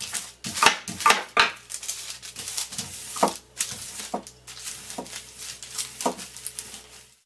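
Irregular knocks, clicks and paper rustling as mochi dough is rolled out on baking paper, first with a rolling pin and then with a glass bottle.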